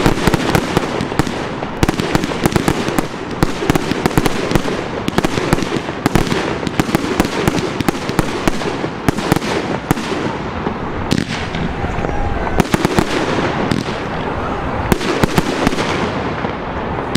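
Professional Category 4 fireworks display going off close by: a dense, continuous barrage of bangs and crackling from aerial shells and fountains, with no gaps.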